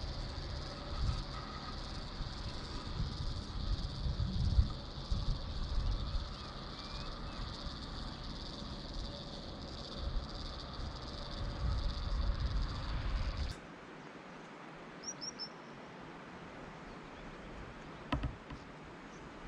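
Steady high insect chirring outdoors, with wind buffeting the microphone. About two-thirds of the way in it cuts abruptly to a quieter scene, where a few short, high bird chirps are heard.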